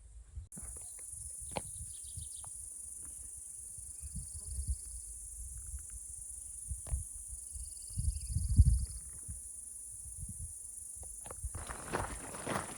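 Insects buzzing steadily at a high pitch, with two short pulsed trills from another insect. Low rumbles come and go underneath, loudest about eight seconds in.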